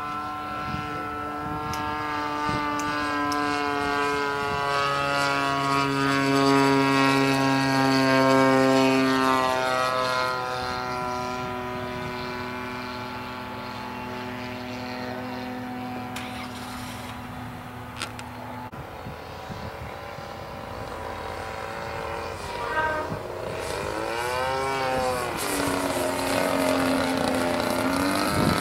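Radio-controlled model airplane engines running in flight, a steady drone whose pitch slides slowly down, then rises and falls twice near the end. A second, lower engine note runs alongside for several seconds early on.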